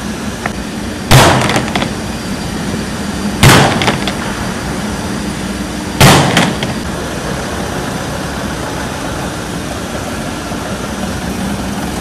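PP plastic concrete formwork panel taking three loud bangs a couple of seconds apart, each followed by a lighter knock. Under them runs the steady idle of a vehicle engine.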